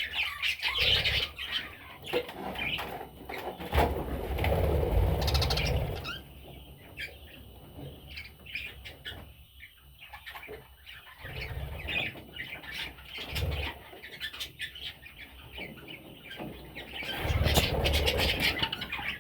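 Pet budgerigars chirping and chattering, with three bouts of wing flapping.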